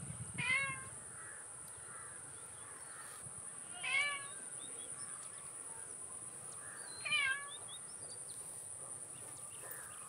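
Domestic kitten mewing three times, short high calls about three seconds apart, over a steady high-pitched whine.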